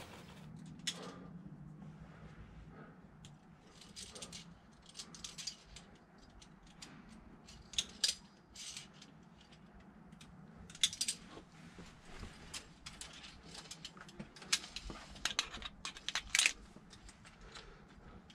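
Via ferrata lanyard carabiners clinking and scraping on the steel safety cable and iron rungs as a climber moves up. The metal clicks and jangles come irregularly, with the sharpest ones in the second half.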